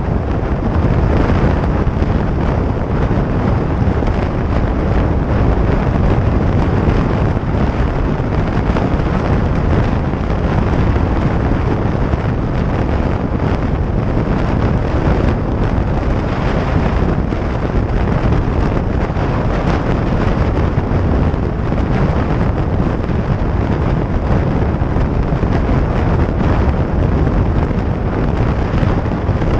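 Steady rush of wind buffeting the microphone, mixed with engine and road noise from a 2017 Harley-Davidson Iron 883 cruising at highway speed. Loud and unchanging, heaviest in the low end.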